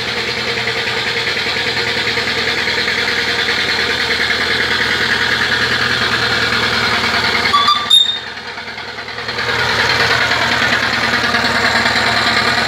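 6-inch scale Little Samson miniature steam traction engine working hard up a steep hill, its exhaust chuffing in steady, rapid beats. About eight seconds in there is a brief sharp sound, and the chuffing drops quieter for a second or so before picking up again.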